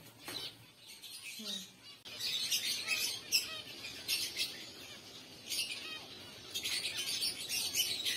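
Many small cage birds in an aviary chirping together in overlapping bursts of high twittering.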